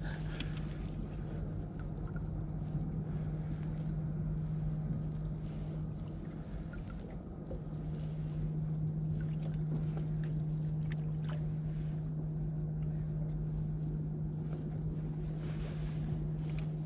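Fishing boat's engine idling, a steady low hum, with a few faint clicks and knocks from gear on deck.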